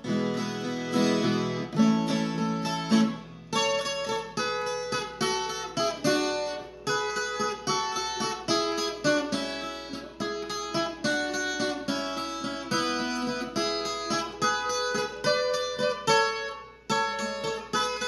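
Background music: an acoustic guitar played in a quick run of plucked notes.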